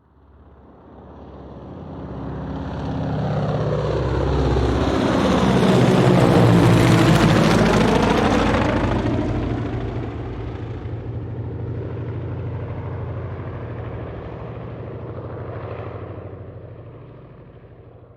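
An aircraft flying over: its engine sound grows from faint to loud, peaks about seven seconds in, then fades away as it passes.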